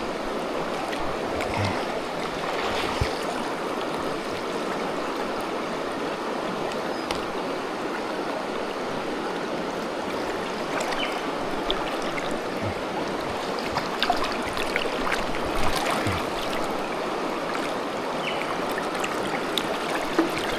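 A fast-flowing river's current running steadily over its bed, with a few faint short clicks and knocks through it.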